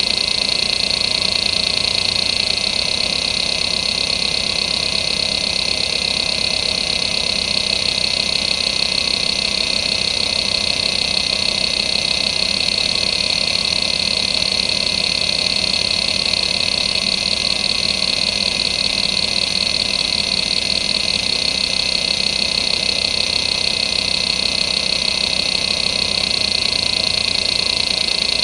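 Seagate ST9144A 2.5-inch hard drive (1992) running the hdmotion seek test: the head actuator sweeps continuously back and forth across the platters in a steady, fast seek chatter over the spindle's whine, and the seek pattern changes partway through. The drive is in perfect health.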